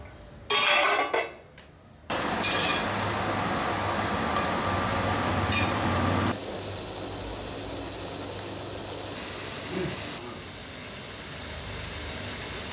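A metal spoon clattering against an aluminium pot of stuffed brinjal curry, then a steady hiss of the curry cooking on the stove.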